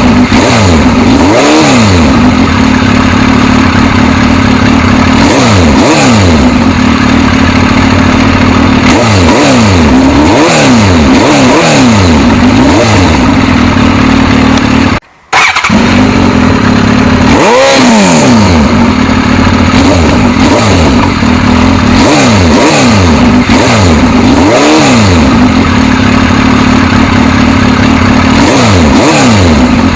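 Suzuki GSX-S1000 inline-four engine revving again and again, its pitch sweeping up and falling back over a steady drone. The sound cuts out briefly about halfway.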